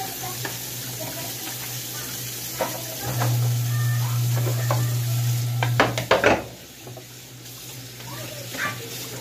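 Kitchen tap running into a sink while dishes are washed, with a low steady hum that grows louder for a few seconds. A burst of metal clattering about six seconds in as pots and a pressure cooker lid are moved, then the water runs on more quietly.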